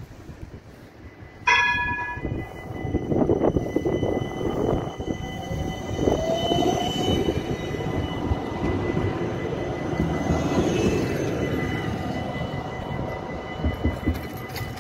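GVB Siemens Combino tram sounds a short, loud warning signal about a second and a half in, then runs past with the rumble of wheels on rail and a steady electric whine, the motor tone rising briefly near the middle.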